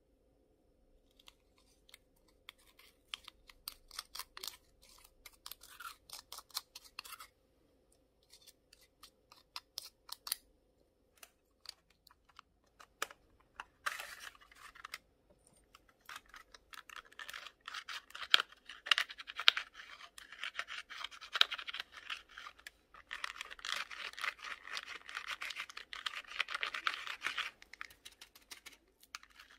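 Plastic makeup compacts handled and scratched over a glass dish: scattered clicks and scratching, then a long stretch of dense crackly scratching through most of the second half.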